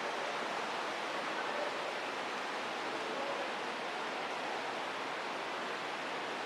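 Steady, even rushing noise that holds the same level throughout, with no distinct events and no voices.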